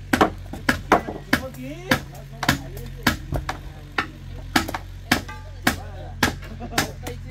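Repeated sharp knocks, about two a second, from a steel crowbar tamping earth and stone around the foot of a wooden post, with wood being chopped close by. A low steady hum runs underneath.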